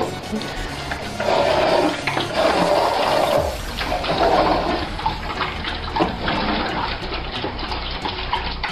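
A litter of puppies eating from plastic food bowls on a wooden floor: a dense, rushing mix of crunching, lapping and bowl clatter, loudest for a couple of seconds about a second in.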